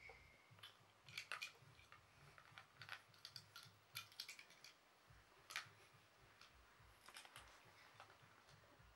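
Faint, irregular clicks and clacks of small toy cars and a toy monster truck being handled, picked up and knocked together.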